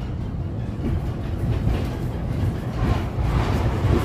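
Cabin noise of a 1960 Duewag GT8 tram running on its rails: a steady low rumble from the wheels and running gear, growing louder and rougher near the end.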